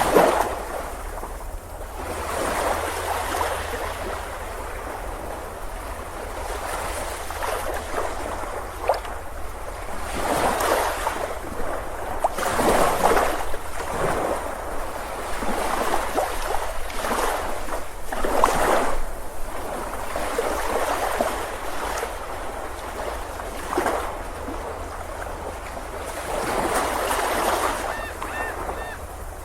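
Ocean surf: waves breaking and washing up the beach, swelling and falling every few seconds over a steady low rumble.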